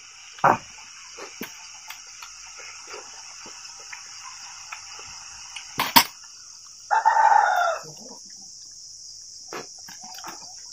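A rooster crows once, a short call a little after seven seconds in that falls in pitch at the end, over a steady high chirring of insects. A few sharp clicks and taps come before it, the loudest about six seconds in.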